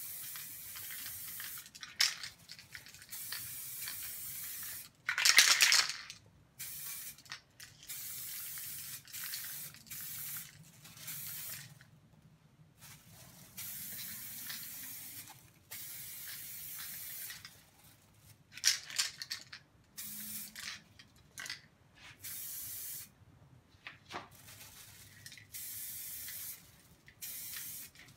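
Aerosol can of DuraCoat paint spraying in a string of hissing bursts of a second or two each, with short pauses between passes. Twice, about five seconds in and again near nineteen seconds, there is a louder rattling burst, the can being shaken.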